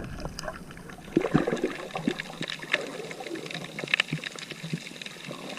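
Sea water sloshing and trickling, with many small splashes and clicks, as someone moves through the shallows gathering sea urchins.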